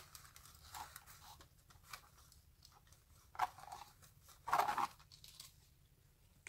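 A few faint, short scrapes and rustles as a wooden craft stick spreads glue across a canvas, the loudest about four and a half seconds in.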